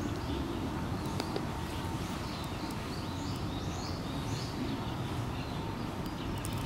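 Small birds chirping, a run of short high calls in the middle, over a steady low background rumble.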